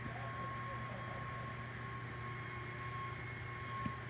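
A 4100-35FA machine running with a steady low hum and a thin, steady high whine, with a sharp knock near the end. This is the knocking fault the owner is recording.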